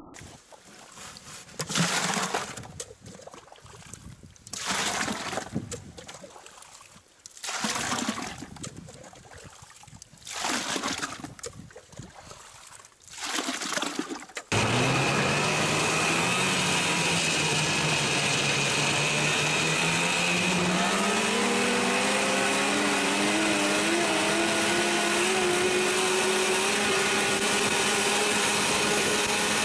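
Shovel scraping and digging in snow, five strokes about three seconds apart. About halfway through, a two-stroke Polaris snowmobile engine takes over, running steadily; its pitch climbs for several seconds as the sled accelerates, then holds level at cruising speed.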